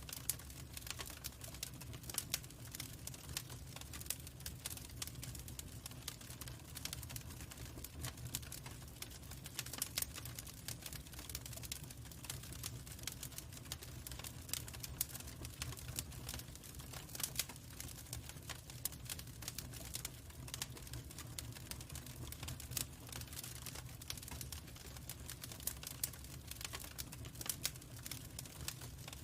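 Wood fire burning in a fireplace, crackling and popping irregularly over a steady low rumble.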